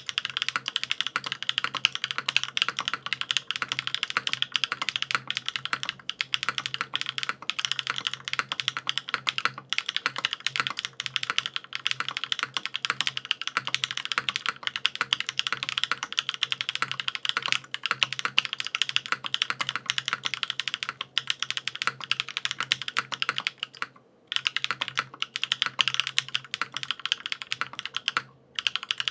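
Fast, continuous typing on a Newone Rose75 mechanical keyboard with lubed SW Popcorn switches, GMK keycaps, a 1.5 mm aluminium plate, a brass weight and no foam: a dense stream of key clicks and clacks, with two brief pauses near the end.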